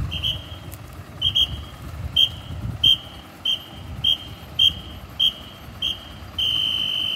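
A firefighter's guide whistle gives short, high-pitched blasts about every half second, one pair in quick succession, and ends with a single long blast near the end: the guide signalling a fire truck through a tight turn and calling a stop. The truck's diesel engine runs low underneath.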